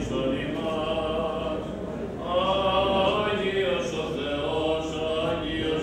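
Greek Orthodox Byzantine chant: clergy sing a slow liturgical melody in Greek, with long held notes that glide from pitch to pitch and swell about two seconds in.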